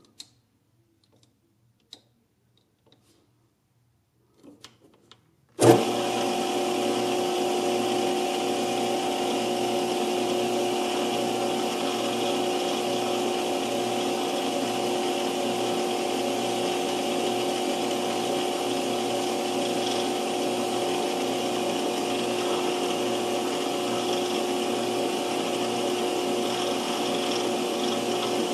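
A few faint clicks, then about six seconds in a metal lathe starts suddenly and runs steadily. Its motor and spindle give a constant whine made of several steady pitches.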